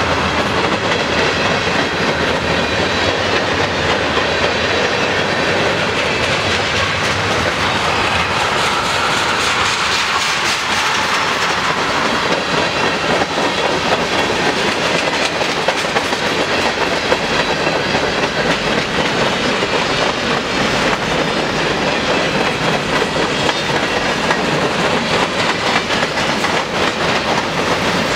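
Freight cars of a long mixed freight train rolling past close by: a steady rumble of steel wheels on rail with a continuous clickety-clack of wheels passing over rail joints.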